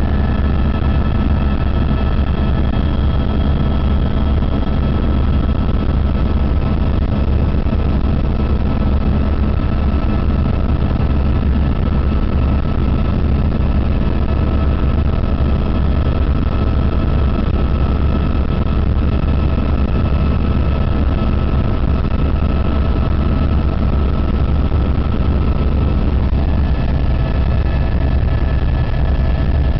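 Helicopter in flight: a steady, heavy low drone of rotor and engine, with faint steady high whines above it.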